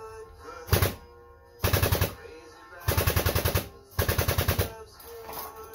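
Four short bursts of rapid hammering, about a dozen blows a second, from an air impact wrench working bolts loose, with background music underneath.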